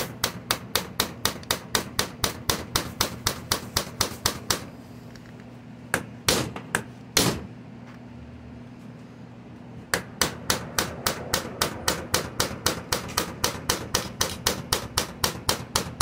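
Rapid light hammer taps, about four or five a second, on a cut-down flathead screwdriver held against a stripped Phillips screw, cutting a notch so the screw can be turned loose. The tapping breaks off for a few seconds in the middle, with a few single strikes, then picks up again at the same pace.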